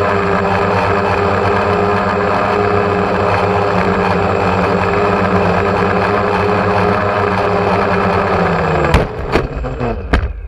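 Steady buzz of a small drone's motors and propellers at one pitch. About nine seconds in it winds down with a falling pitch, followed by a few sharp knocks as it touches down on gravel and stops.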